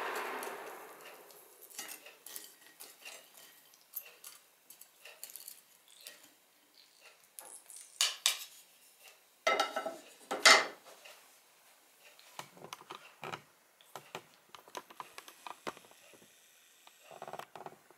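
Wooden flat spatulas scraping and knocking against a ceramic frying pan and a porcelain plate as fried chicken nuggets are lifted out: scattered clicks and clatters, loudest about eight and ten seconds in. At the start the hot oil's sizzle fades out within the first second.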